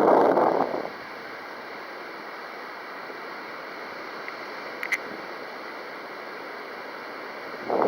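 Strong wind buffeting the microphone: a loud gust in the first second and another near the end, with a steady windy hiss between. A brief faint chirp about five seconds in.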